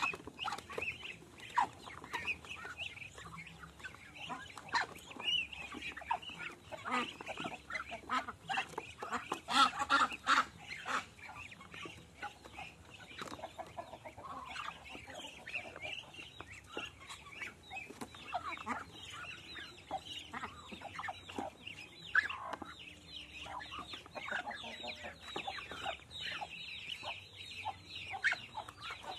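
A flock of Muscovy ducks feeding together from a shallow basin of wet snail-and-rice-bran mash: beaks peck and clatter on the basin and dabble in the feed, busiest about a third of the way in. Many short high chirping calls run through it.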